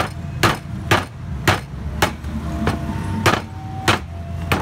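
Cleaver chopping on a chopping block: sharp, even strokes about two a second, nine in all.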